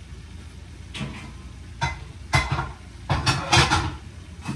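Kitchenware clanking and knocking as a low kitchen cabinet is rummaged through: scattered clatters, the loudest run of them a little past the middle.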